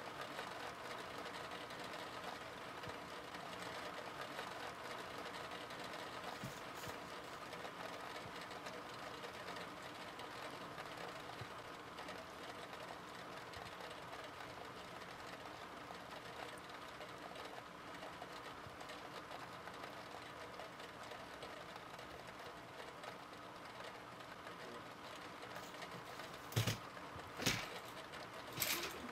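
A faint, steady mechanical whirring hum, then three sharp knocks near the end.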